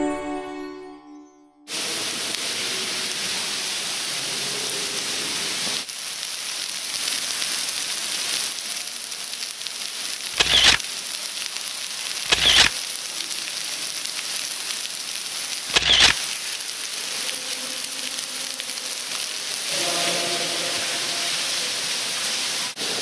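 Music fading out, then the steady rushing hiss of falling water from an underground waterfall, with three short louder bursts about ten, twelve and a half and sixteen seconds in.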